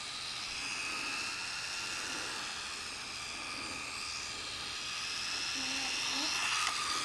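Small electric motor of an RC toy truck running with a steady high whine, its pitch wavering slightly up and down.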